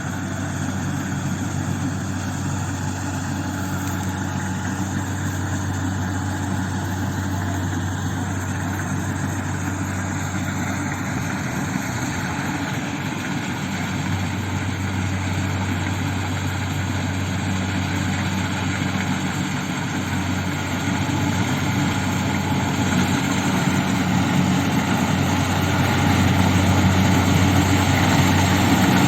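Kubota combine harvester's diesel engine running steadily with machine noise, growing louder toward the end.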